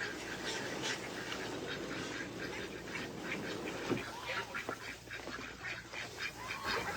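Domestic ducks quacking, many short overlapping calls from a flock.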